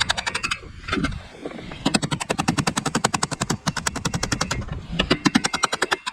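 Ratchet wrench clicking rapidly and evenly, about a dozen sharp metallic clicks a second, in bursts of one to two seconds with short pauses, as a fastener is worked loose.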